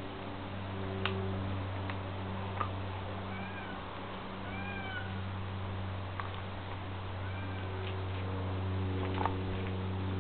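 Siberian husky chewing a whole raw chicken, with a few sharp clicks of teeth on bone, over a steady low hum. Three short rising-and-falling mewing calls come in the middle.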